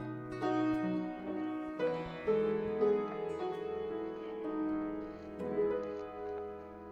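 Piano music, a run of held notes.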